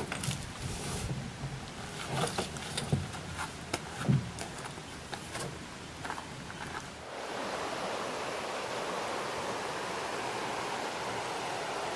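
Scattered knocks, thumps and rustling as a canoe is hoisted from the shore and flipped overhead onto a paddler's shoulders for a portage, the heaviest thump about four seconds in. About seven seconds in this gives way to the steady rush of river rapids.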